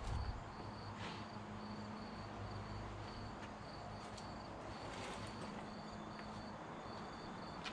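Crickets chirping in an even, repeating pulse, over a faint low hum, with a few soft clicks and crinkles as foil-wrapped food is handled on the grill.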